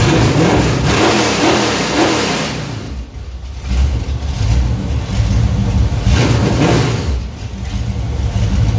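Rebuilt 5.7 L Vortec small-block Chevy V8 on an engine run stand, running through open headers and revved by hand at the carburetor: a long rev at the start that drops back to idle about three seconds in, then a second, shorter rev about six seconds in before settling back to idle.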